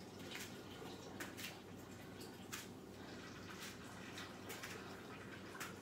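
Faint room tone with a low steady hum, overlaid by soft, irregular clicks and rustles, several a second, from a person doing high kicks on an exercise mat.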